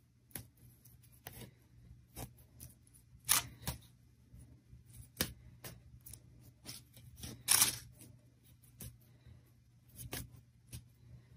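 Crepe paper crinkling and crackling in short irregular bursts as a glued strip is wrapped back and forth around a flower stem, with a faint steady low hum underneath.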